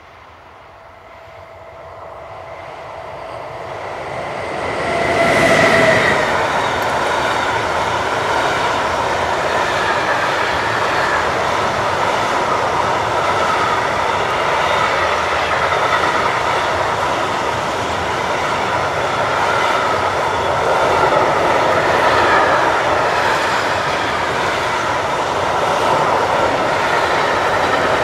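Class 193 Siemens Vectron electric locomotive approaching, its thin whine and running noise growing louder over the first five seconds until it passes about six seconds in. Then a long intermodal freight train of pocket wagons loaded with semi-trailers rolls past with a steady, loud rattle of wheels on rail and light clickety-clack.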